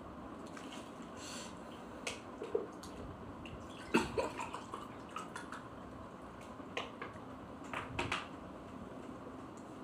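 A drinking glass being handled and drunk from: a few short knocks and clinks, the loudest about four seconds in, then sips of water near the end.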